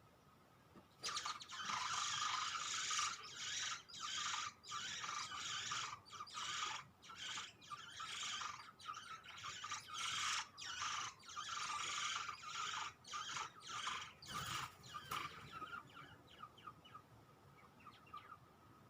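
Grey shrike-thrush nestlings giving a dense chorus of harsh, hissy begging calls that starts suddenly about a second in, breaks into shorter bursts, and fades out a few seconds before the end.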